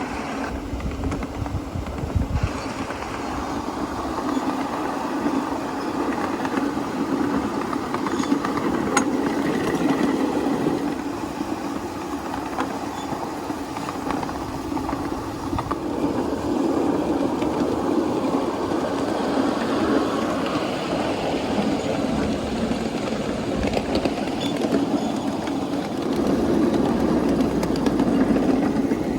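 A 7¼-inch gauge live-steam miniature train running on its track, a continuous mechanical rumble and rail noise that swells and eases as it goes.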